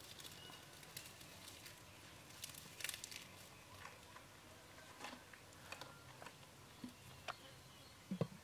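Faint scattered clicks and crackles, then a short dull clunk near the end as a lid is set onto a clay cooking pot.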